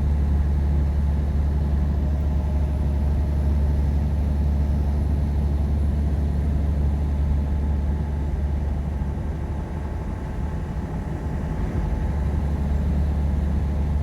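Semi-truck's diesel engine and road noise heard from inside the cab while driving: a steady, low, even drone that eases slightly for a few seconds past the middle.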